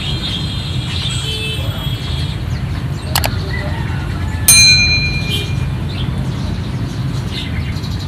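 Caged songbirds chirping faintly over a steady rumble of road traffic. About three seconds in comes a mouse-click sound effect, then a second later a loud bell-like ding, the sound of a subscribe-button animation.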